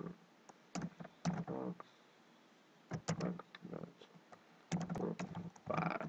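Typing on a computer keyboard in short bursts with pauses between, as a folder path is keyed into a search box.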